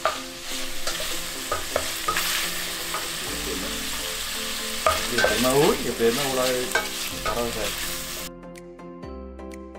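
Pork pieces sizzling as they are stir-fried in a stainless steel pan, with the spatula scraping and clattering against the pan as it stirs. The sizzling cuts off abruptly near the end.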